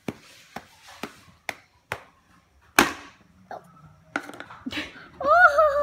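Small plastic Play-Doh cupcake cup knocked against a plastic play tray, about two knocks a second, then a louder knock and a few irregular ones. A child's short, high vocal sound comes near the end.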